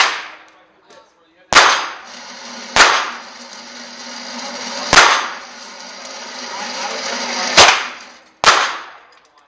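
Five gunshots from other lanes of an indoor firing range, each a sharp crack with an echoing tail, one to two seconds apart. Under them the motorized target carrier whirs steadily, growing louder as it brings the paper target back, and stops near the end.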